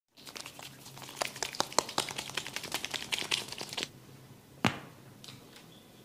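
Head-massage sounds: a quick, irregular run of sharp crackling clicks for nearly four seconds, then one louder single crack.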